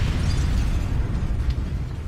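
Building explosion: a heavy low rumble of the blast with scattered crackling debris, fading about halfway through.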